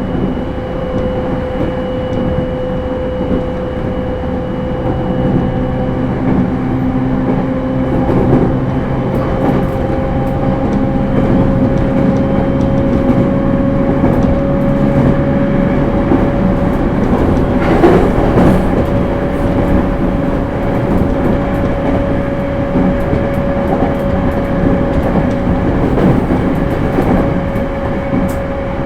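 Interior running sound of a JR East E231 series suburban electric train at speed: a steady whine from its Hitachi IGBT inverter and traction motors, rising slightly in pitch, over wheel-on-rail rumble and scattered ticks. A brief louder rush of noise comes a little past the middle.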